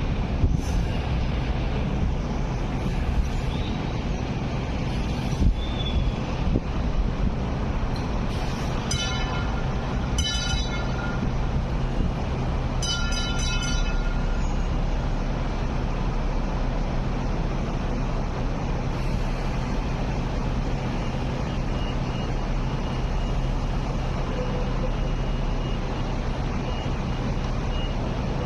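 Hong Kong Light Rail vehicles moving slowly through the depot junction with a steady low rumble. Short pitched warning signals sound about nine and ten seconds in, then a quick run of about four near thirteen seconds.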